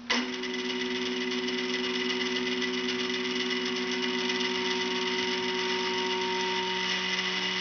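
A 425 oz-in stepper motor on a Gecko G540 driver, jogging forward at a steady speed with a steady multi-tone whine and hum that starts abruptly. Meanwhile the driver's trim is turned up to its highest setting.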